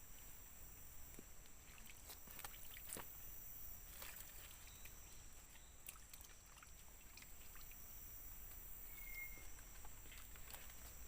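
Faint forest ambience: a steady high-pitched drone of insects, with scattered small clicks and rustles and one brief high note about nine seconds in.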